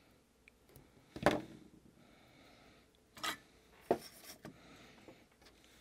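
Flush cutters snipping stranded motor wire, with a few sharp clicks: the loudest about a second in, more around three to four seconds in. Faint rubbing of hands and wire on the bench between the snips.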